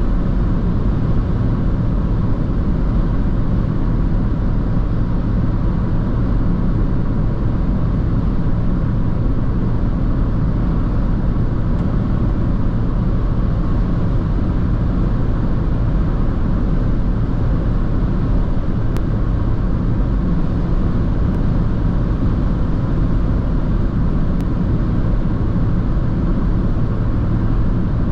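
Dacia Jogger's 1.0-litre three-cylinder turbo petrol engine and tyre and road noise heard from inside the cabin while driving, a steady low drone.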